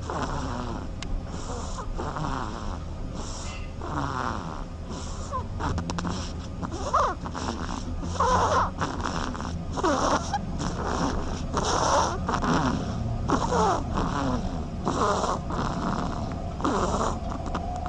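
Ducks snoring: raspy, noisy breaths repeating unevenly about once a second, several overlapping.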